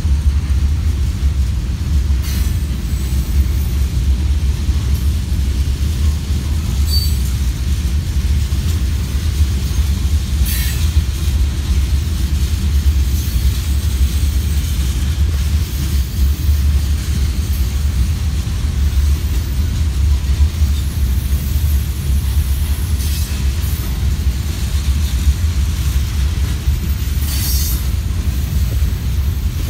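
Freight train of loaded tank cars rolling steadily past on the rails, a constant low rumble. A few short high-pitched wheel squeaks are spread through it.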